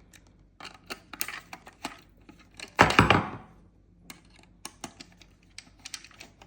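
Small clicks and knocks of a screwdriver working screws out of the back of an overlocker's tension-knob assembly, with one loud clatter of hard parts about halfway through.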